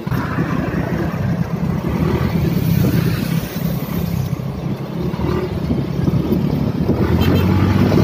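Motor scooter engine running steadily while riding, with wind noise on the microphone.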